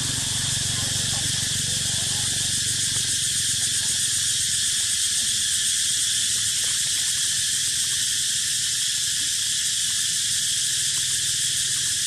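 Steady chorus of insects, a shrill high drone that never breaks, over a low steady hum.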